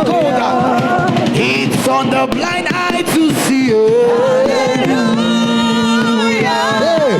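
Gospel worship music with singing: sustained sung notes that slide and waver, over accompaniment with a few sharp percussive hits.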